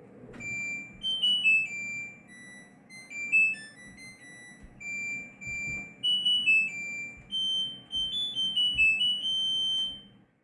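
LG washing machine playing its end-of-cycle melody, a tune of clean electronic beeps stepping up and down for about ten seconds: the wash cycle has finished.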